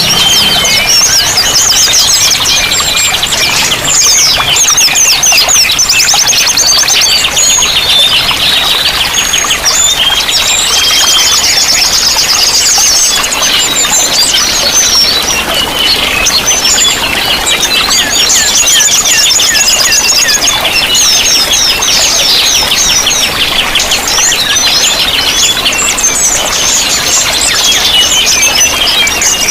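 Several small songbirds singing at once, with rapid trills and chirps overlapping continuously, over steady running water.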